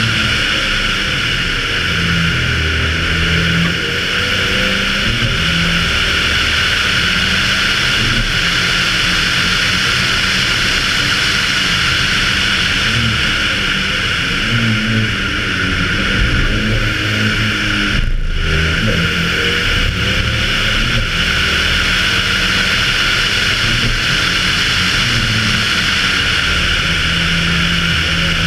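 Audi Quattro A2 Group B rally car at speed on track: its turbocharged five-cylinder engine rising and falling in pitch through repeated gear changes and lifts, under a loud, steady rush of wind noise. The rush breaks off for a moment about two-thirds of the way through.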